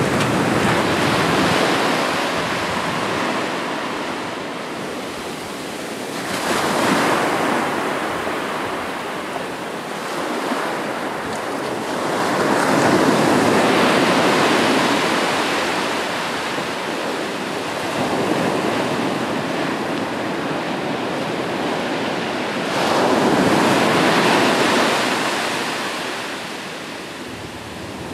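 Ocean surf: waves break and wash in one after another, about four swells, each rising and falling away over several seconds.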